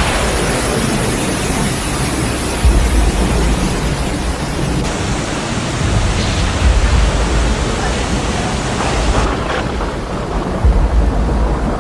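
Heavy rainstorm noise, a dense steady roar of rain and wind with low rumbles swelling up a few times. The sound changes abruptly several times, as between separate storm clips.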